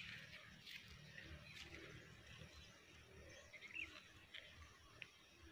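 Near silence: faint outdoor ambience with a few short, faint bird chirps.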